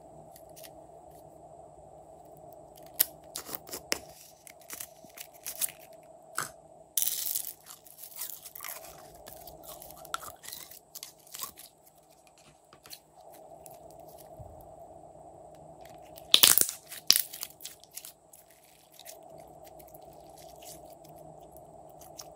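Glossy slime squeezed and folded by hand, with sticky clicks and crackling pops. The loudest bursts come about seven seconds in and in a tight cluster a little past the middle, over a faint steady hum.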